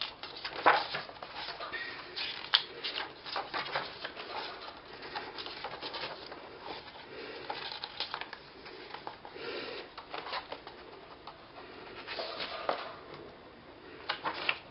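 Pet budgerigars chirping and chattering, with scattered clicks and rustles of paper as photobook pages are handled.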